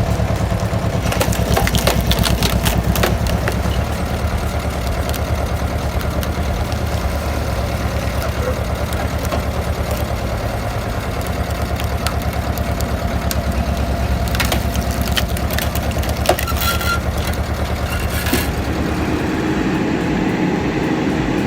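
Tractor diesel engine running steadily under load while a PTO-driven auger wood splitter screws into ash logs, with the wood cracking and splintering in repeated sharp bursts. Near the end the engine drone changes to a different machine note.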